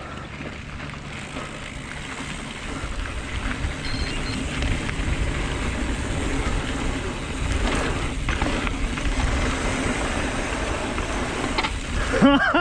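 Mountain bike riding a dirt trail: rushing wind and tyre rumble that grow louder as speed builds.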